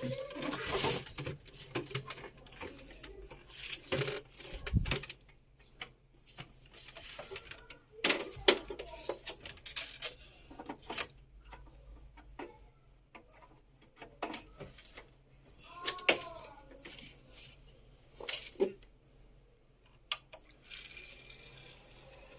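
Irregular clicks, taps and rustling from computer hardware being handled, with quieter stretches between clusters of knocks.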